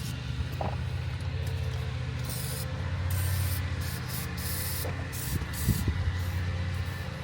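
Aerosol spray can hissing in several short bursts, spraying cleaner onto rusty battery terminals.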